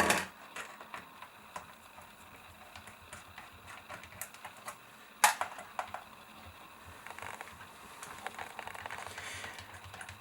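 Faint, irregular clicks and ticks of a small precision screwdriver turning out the bottom-cover screws of an Acer Swift 3 laptop, with a sharper click about five seconds in.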